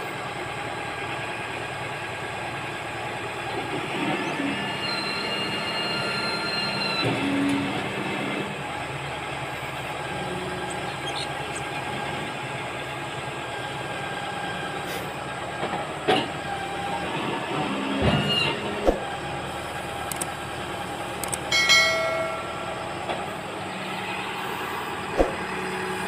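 Lovol backhoe loader's diesel engine running steadily, with brief high squeals and a few sharp knocks as its backhoe arm and bucket are moved.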